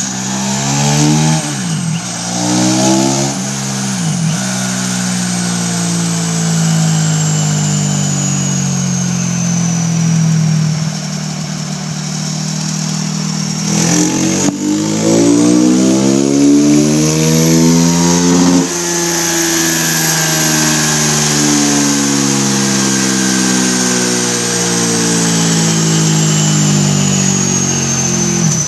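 Cannondale ATV engine run on a chassis dyno through a pair of quiet dual Suzuki GSX-R1000 mufflers, under muffler testing. Revs climb in two short pulls, then fall slowly; a long pull climbs to a sudden drop about two-thirds through, and the revs sink slowly again. A thin high whine rises and falls with the speed.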